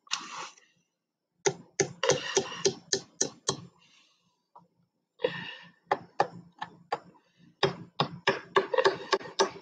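Claw hammer tapping small nails through thin wooden studs into a plate: two runs of quick, light taps, the second longer.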